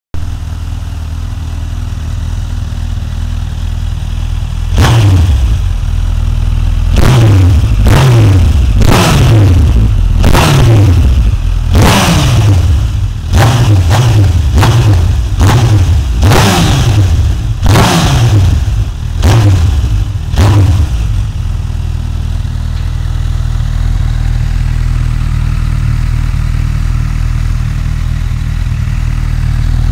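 Honda CB1000R's inline-four engine, breathing through a modified stock exhaust, idling and then blipped hard about fifteen times in quick succession. Each blip revs up sharply and drops straight back. The blips start about five seconds in, stop about twenty-one seconds in, and the engine settles back to a steady idle.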